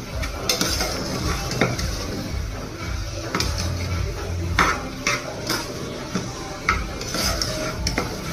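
Steel spoon stirring and scraping rice being sautéed in a metal pressure cooker pot, with irregular clinks and scrapes against the pot.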